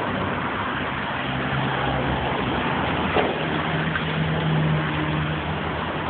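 Diesel engine of a hydraulic demolition excavator running over a steady wash of noise, its note stepping up in pitch a little past the middle. A single sharp knock about three seconds in.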